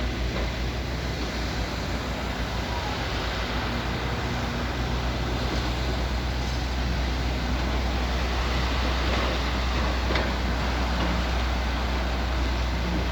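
Steady low engine rumble with a constant low hum, growing slightly louder about halfway through.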